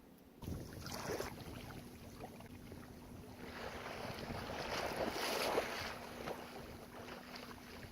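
Kayak paddle dipping and water splashing and sloshing against the hull as the kayak is paddled, swelling in the middle and easing off toward the end.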